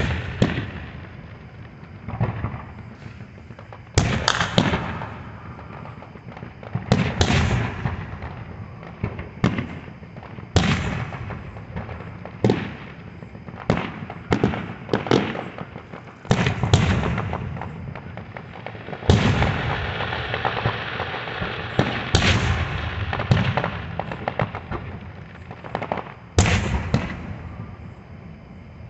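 Aerial fireworks display: aerial shells bursting with loud bangs every second or two, some followed by crackling, with booms and crackle overlapping and echoing between bursts.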